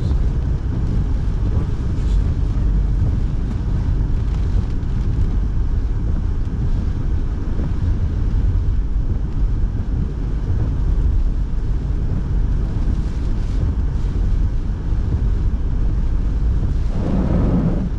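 Steady low rumble of a car driving, heard from inside the cabin, with road noise and the heater fan blowing. Near the end there is a brief, slightly louder sound in the lower-middle range.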